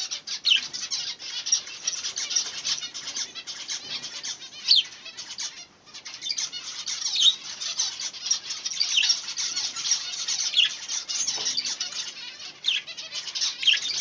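Budgerigars chattering and warbling continuously, with sharper chirps every second or two and a brief lull a little before halfway.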